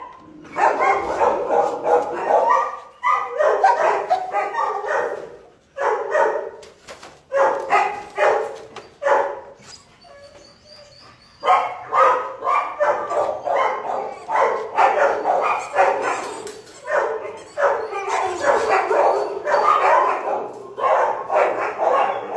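Shelter dogs barking over and over in quick volleys, with a lull of about two seconds around ten seconds in.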